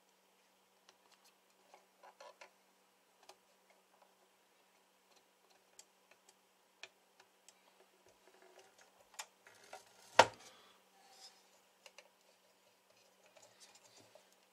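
Scattered light clicks and taps from hands and a soldering iron working on a transistor CB amplifier's circuit board, with one sharper, louder click about ten seconds in.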